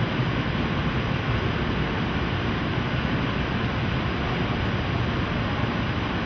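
Steady rumble and hiss of railway station ambience, from trains standing at and drawing into the platforms, holding at an even level with no distinct events.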